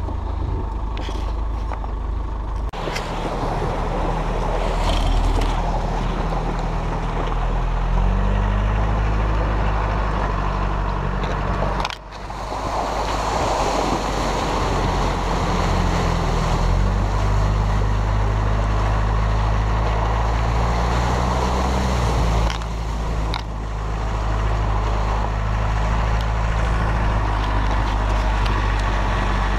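Land Rover ambulance camper's diesel engine running under load while driving off-road, its note stepping up and down with engine speed, over rushing tyre and wind noise. The sound breaks off abruptly a few times.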